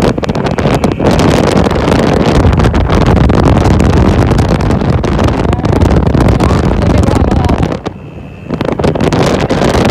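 Wind buffeting the microphone over a motorcycle engine and road noise while riding; the sound dips sharply for about half a second around eight seconds in.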